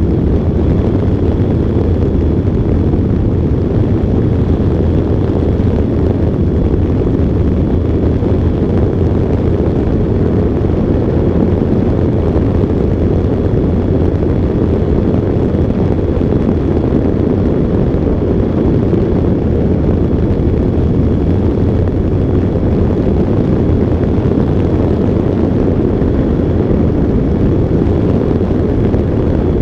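Steady rush of airflow and propeller noise from the Synchronus Goat electric ultralight aircraft in cruising flight, heard through a wing-mounted camera, with a faint steady high whine.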